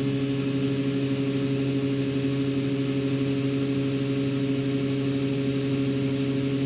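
Combine harvester running steadily with an even engine hum.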